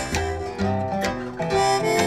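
Instrumental music played back through KEF LS50 bookshelf loudspeakers: plucked notes with a sustained melody line over a bass part.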